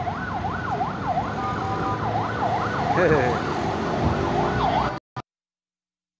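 Emergency vehicle siren in a fast yelp, its pitch sweeping up and down about twice a second, over low street traffic noise. It cuts off abruptly about five seconds in.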